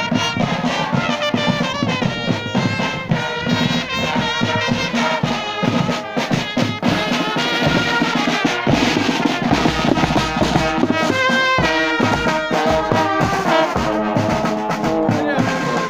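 Marching brass band playing a march: trombones and trumpets carrying the tune over steady beats of bass and snare drums.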